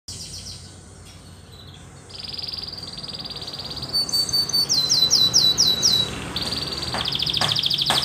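Domestic canary singing a fast, rolling song of rapid trills, a few short whistled notes and runs of quick falling sweeps. It is faint for the first two seconds, then louder.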